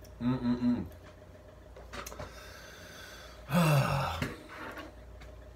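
A man's voice making wordless sounds while he eats: a short hum just after the start, then a louder, breathy vocal sound falling in pitch about three and a half seconds in.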